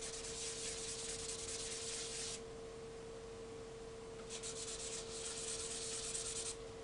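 Small 3D-printed plastic master rubbed back and forth on wet 500-grit sandpaper: a scratchy hiss for about two and a half seconds, a pause of about two seconds, then a second bout of about two seconds. It is a light wet sanding to take the printed layer lines off the surface.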